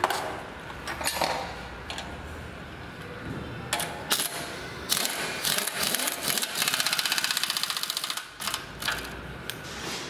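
Pneumatic impact wrench hammering a nut down on a motorcycle frame's steering head: a fast, even rattle of blows from about five seconds in, loudest for about a second and a half before it stops near eight seconds. A few metal clinks and knocks come before it as parts are set on the steering head.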